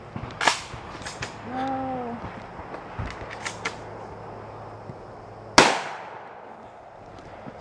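Two shotgun blasts: a moderate one about half a second in and a louder one about five and a half seconds in, each with a short echoing tail, with a few lighter clicks between them.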